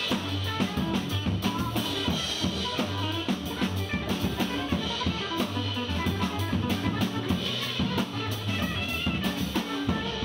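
Jazz drum kit played live: quick, busy strokes on the drums and cymbals, with low sustained notes underneath.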